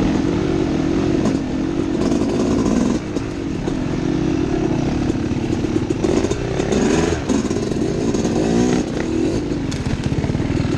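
Dirt bike engine running on a wooded trail ride, its pitch rising and falling as the throttle is worked, most busily about two-thirds of the way through, with some clatter over rough ground.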